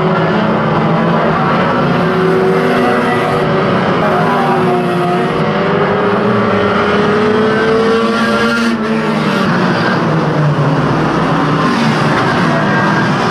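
Several banger racing car engines running and revving together as a pack, their pitch rising and falling as the cars accelerate and ease off.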